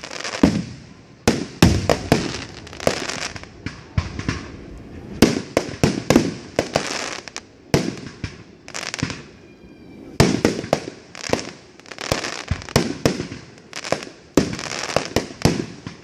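Aerial firework shells bursting in quick succession: loud, sharp bangs one after another, with crackling between them.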